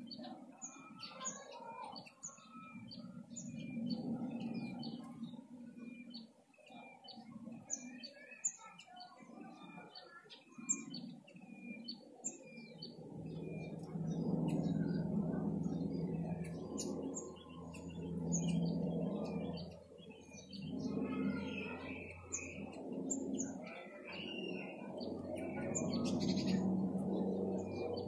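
Small birds chirping in short, repeated high notes throughout. From about halfway a louder low drone with a steady pitch swells and fades several times underneath.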